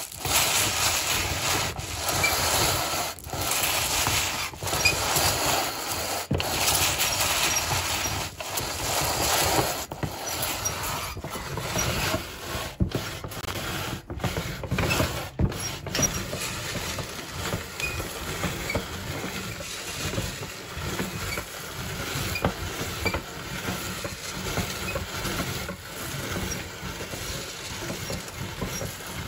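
Manual meat grinder crushing dry chocolate cereal balls and cornflakes: a steady, dense crunching and crackling with sharper cracks here and there.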